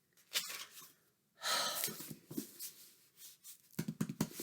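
Paper and packaging rustling while books are handled, with a few light knocks and clicks near the end.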